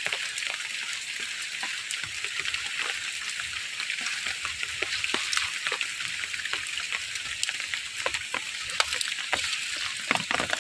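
Steady hiss of rain falling, with many scattered small clicks and patters of drops.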